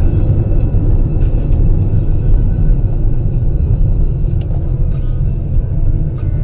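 Steady low rumble of a car driving: road and engine noise.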